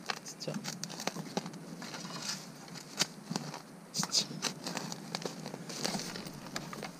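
Spade digging into soil through dry bamboo leaf litter, with steady crackling and rustling of the leaves and a few sharper scrapes of the blade about three and four seconds in.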